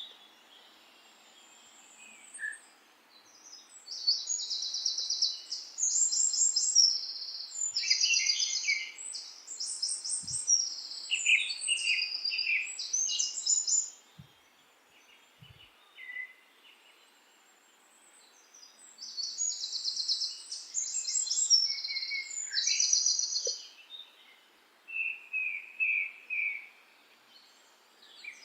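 Songbirds singing: phrases of rapid high trills and chirps in two long bouts, with quiet pauses between.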